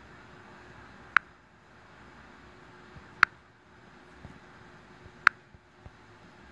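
Three short, sharp clicks, evenly spaced about two seconds apart, over faint room hiss.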